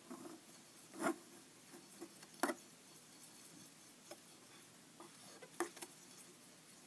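A paintbrush stirring liquid glue into water in a clear plastic tub to make homemade Mod Podge: a faint wet swishing with a few separate taps of the brush against the tub, about a second in, two and a half seconds in and near the end.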